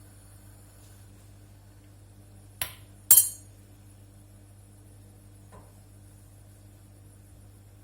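Two sharp clinks of kitchenware about half a second apart, the second louder with a brief ring, then a faint tap a couple of seconds later.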